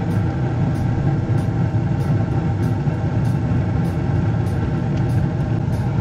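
Bryant 926 two-stage gas furnace running in low-stage heat: a steady mechanical hum from its inducer draft motor and burning burners.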